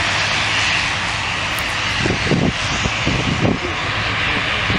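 Single-engine light aircraft flying past low, its engine a steady drone that slowly fades as it moves away. Irregular low rumbles come in from about two seconds in.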